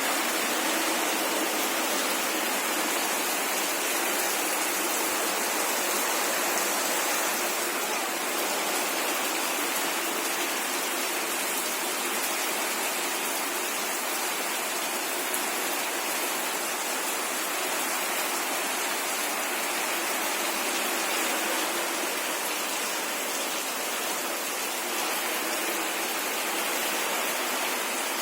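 Heavy rain falling steadily, an even hiss of water with no breaks.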